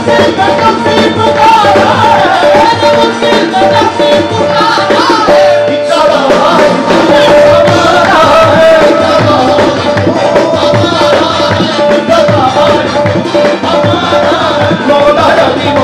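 Qawwali music performed live: a harmonium holding a steady note under tabla drumming and the lead singer's voice, with hand-clapping from the accompanists.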